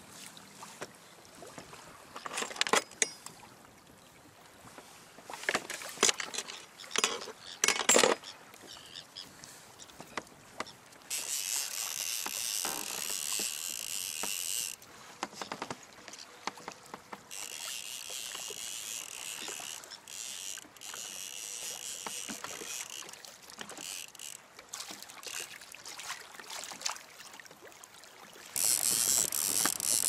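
Fishing kayak on a choppy sea: a few sharp knocks and clatters against the hull in the first several seconds, then long stretches of rushing water noise, loudest near the end.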